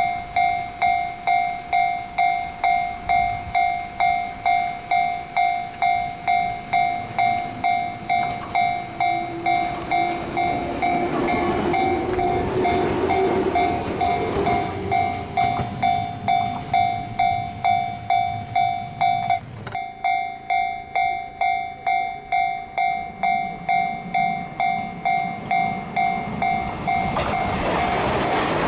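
Japanese level-crossing alarm ringing in a steady, even pulse, a little under two strikes a second. A train passes the crossing in the middle, its noise swelling about a third of the way in and fading again. The alarm carries on after an abrupt break, and another train approaches near the end.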